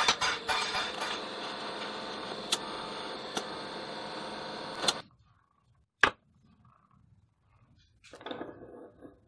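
A hammer striking a steel rod on a steel bench, a few quick blows, then a TIG welding arc hissing steadily for about four seconds before cutting off suddenly. A single sharp metallic click follows, and near the end there is light clinking of steel being handled.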